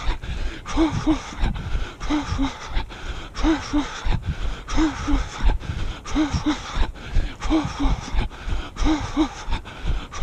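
A jogger breathing hard in a steady rhythm: a pair of short voiced puffs of breath about every second and a third. Even footfalls on a dirt path run underneath, several to each breath.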